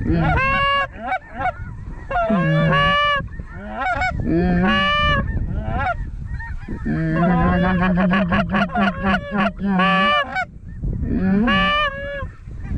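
Goose calling, loud and close: repeated honks and clucks in short runs with brief pauses between them, the longest run about seven to ten seconds in.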